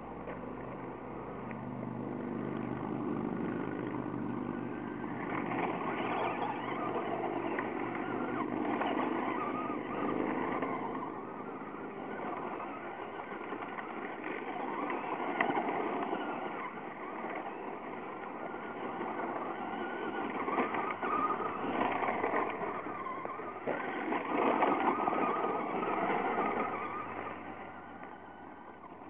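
Traxxas Slash RC short-course truck driving around on gravel, its motor and tyres swelling louder and fading several times as it passes near and runs off again.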